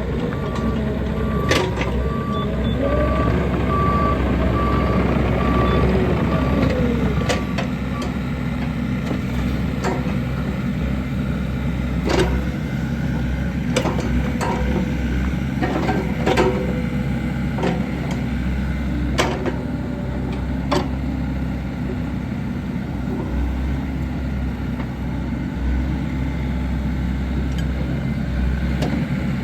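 Bobcat E45 mini excavator's diesel engine running with its hydraulics working; a beeping alarm sounds in the first few seconds, and the engine note rises and falls under load. Sharp knocks recur every few seconds.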